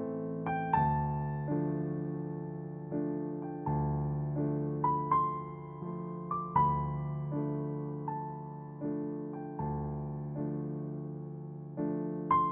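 Background music: a slow, gentle piano melody over sustained chords, notes struck and left to fade.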